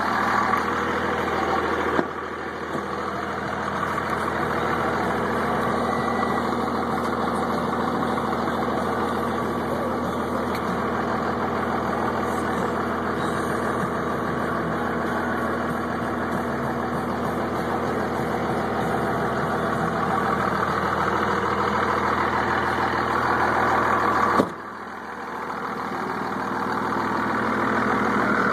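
Dodge Ram 2500's 5.9-litre Cummins inline-six turbo-diesel idling steadily. Two sharp knocks break in, one about two seconds in and one near the end, and the engine sounds quieter for a few seconds after the second.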